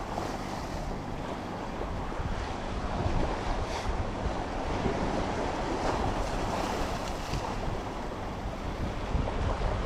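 Ocean waves washing against the shore, with wind rumbling on the microphone.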